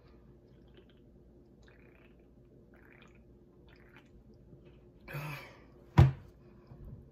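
Gulping from an aluminium drink can, a few faint swallows, then a short breathy sound about five seconds in. A single sharp knock about six seconds in, the loudest sound, as the can is set down on the table.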